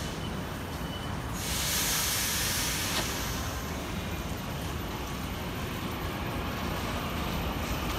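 Taiwan Railway EMU900 electric multiple unit standing at the platform with a steady low running hum, and a loud hiss of released air about a second and a half in that lasts about a second and a half.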